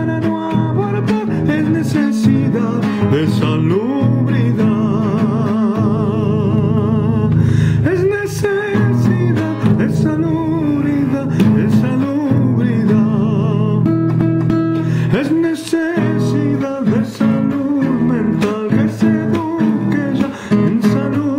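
Acoustic guitar strummed in a samba feel in A minor, with a man's voice singing a held, wavering melody over it.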